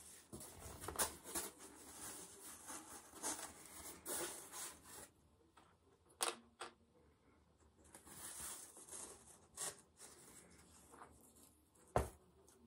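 Cross-stitch fabric and thread being handled close to the microphone: irregular rustling and rubbing, with a couple of short sharp clicks, one about halfway through and one near the end.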